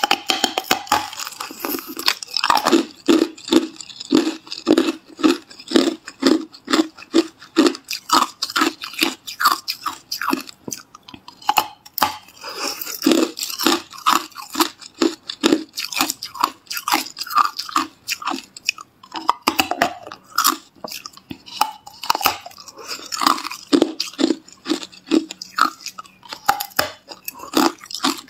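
A person biting off and chewing mouthfuls of hard clear ice: a rapid, loud run of sharp crunches, several a second.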